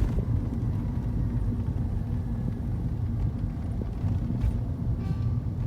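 Car driving: a steady low rumble of engine and road noise heard inside the cabin.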